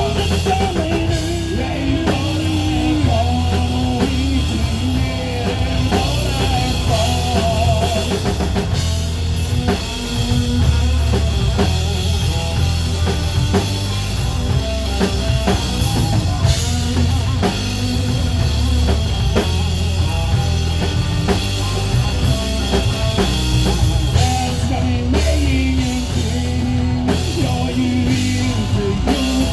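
Rock music played on drum kit and guitar, with a steady beat.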